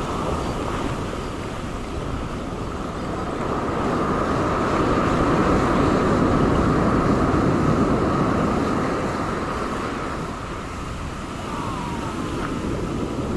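Ocean surf washing on the shore with wind buffeting the microphone, swelling louder through the middle and easing off near the end.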